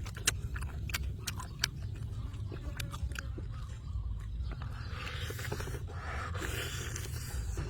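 A person chewing and biting into boiled chicken, with several sharp clicks in the first couple of seconds and a softer rustling noise near the end.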